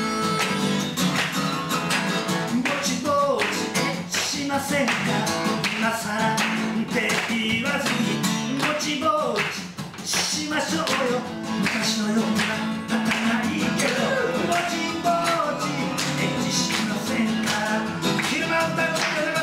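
Acoustic guitar strummed in a steady rhythm in a live song, with a gliding melody line over it and a brief drop in loudness about ten seconds in.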